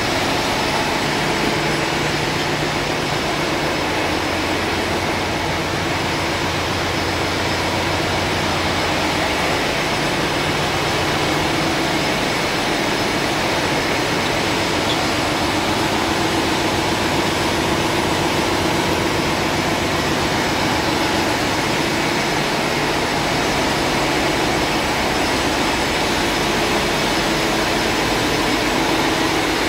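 Ship's engine-room machinery running: a loud, steady, even drone with a low hum underneath.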